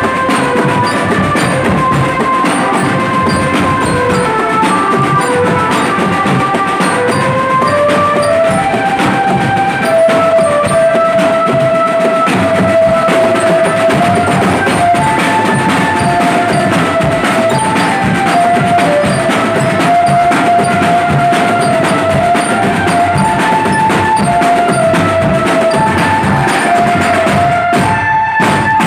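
Marching drum band playing: bass drums and a row of other marching drums beat a dense, driving rhythm under a melody of held notes stepping up and down.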